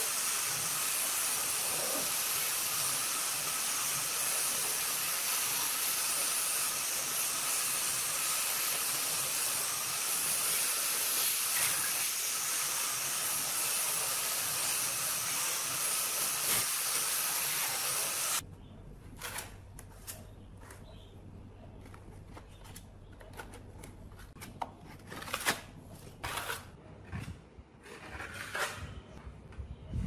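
Angle grinder with an abrasive sanding disc running steadily while sanding rust off a metal refrigerator panel. About 18 seconds in it cuts off suddenly, leaving a low hum and a few short scrapes of a putty knife spreading body filler.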